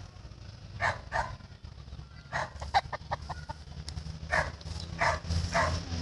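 Short, sharp animal calls, about a dozen in uneven groups, with a quick run of them between two and three and a half seconds in, over a low steady rumble.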